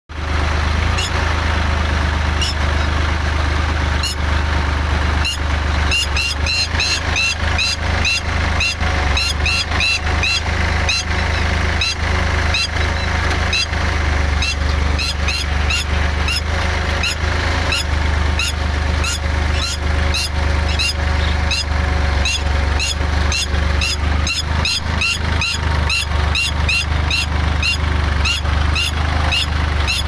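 Tractor engine running steadily while a red-wattled lapwing screeches over and over in rapid, shrill alarm calls, the calls coming thicker from about six seconds in. The bird is defending its nest and egg from the approaching machine.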